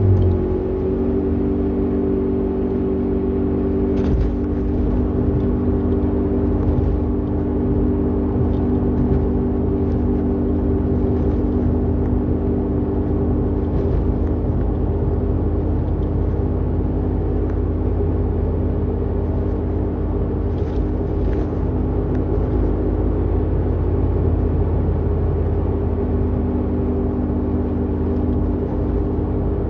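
Toyota Vitz (NCP13) driving at a steady speed with a loud, continuous droning roar, a 'gooo' sound. This is the noise of a worn wheel hub bearing.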